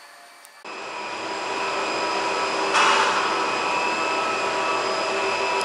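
Steady mechanical hum and whine of a cable car station's drive machinery, heard from inside a gondola cabin moving through the station. It starts suddenly about half a second in, with a brief louder rush about three seconds in.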